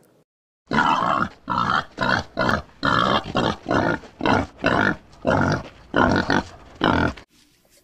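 Red river hog grunting in a steady run of short grunts, about two a second. The grunts start about half a second in and stop shortly before the end.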